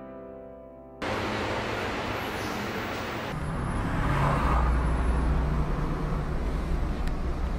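Piano music fading out, then a sudden cut about a second in to the steady road and engine noise of a moving car heard from inside the cabin, with a deep rumble growing stronger a couple of seconds later.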